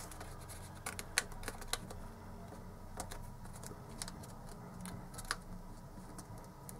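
Sheet of origami paper being folded and pressed flat by hand on a cutting mat: faint rustling with a handful of scattered sharp clicks and taps.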